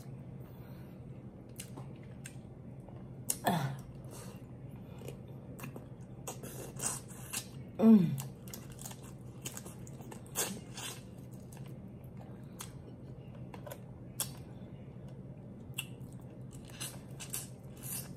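Close-up mouth sounds of eating lobster: chewing, wet lip smacks and sucking at pieces of shell, with many small scattered clicks. Twice comes a short falling "mmm", the louder one about eight seconds in.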